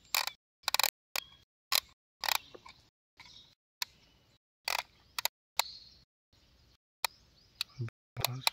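Plastic clicking from a toy crane's hook winch as the hook is paid out and lowered: a dozen or so sharp, uneven clicks.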